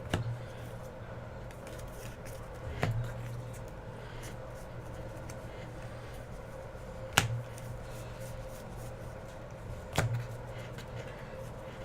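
Hands handling baseball trading cards, with four sharp clicks spread out over a steady low hum.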